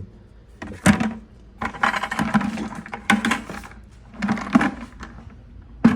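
Metal lifters clinking and rattling as they are handled in a container of oil: a sharp click about a second in, then a longer spell of clatter and a shorter one near the end.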